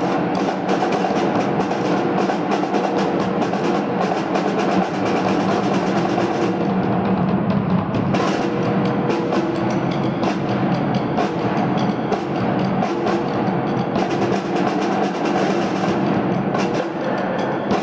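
Brass and reed band playing, with wind instruments holding sustained notes over snare drums and a bass drum beating steadily.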